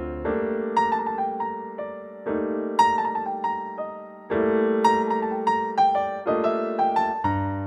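Background piano music: chords struck about every two seconds, with a melody of single higher notes between them.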